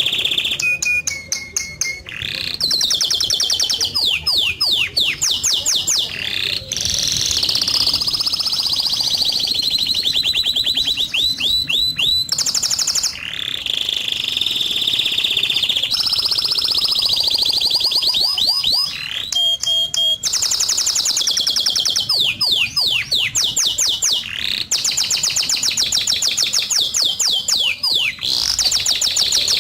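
A songbird singing a long, continuous song of rapid trills, each a fast run of one repeated chirp that switches to a new note type every second or two, with a few short steady whistles in between.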